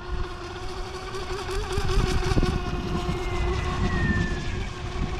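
DEERC RC speedboat's KV2850 brushless motor running with a steady high-pitched whine as the boat cruises on the water.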